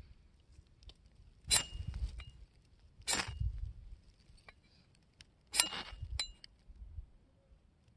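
The spine of a Tramontina machete scraped hard down a brand-new ferro rod three times, a second or two apart. Each stroke is a short metallic rasp followed by a thin ring from the blade, with a lighter tick near the end.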